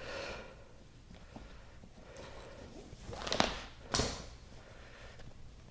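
Double-braid polyester lacing line being pulled by hand through the metal grommets of a vinyl-wrapped catamaran trampoline and tightened. There is a short rasp at the start, then two loud rasps of rope sliding through, about three and a half and four seconds in.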